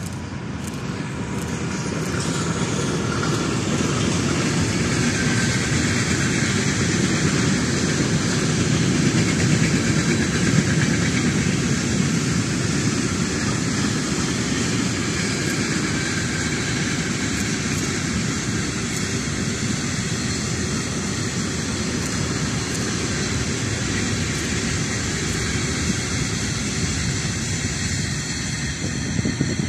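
Long freight train of container and grain wagons, hauled by an electric locomotive, rolling past: a steady rumble of wheels on rails that builds over the first few seconds and then holds.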